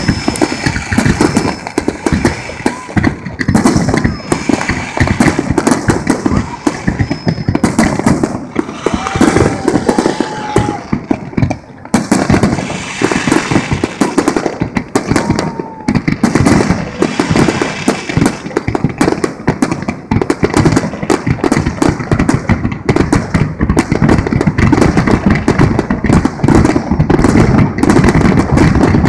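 Large aerial fireworks display: many shells bursting in quick succession, a dense, loud barrage of bangs and crackle.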